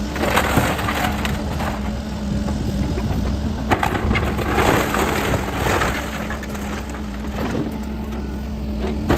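A mobile home being torn apart by a heavy machine: a steady engine hum underneath irregular crunching and cracking of breaking wood and siding, with one sharp crack a little under four seconds in.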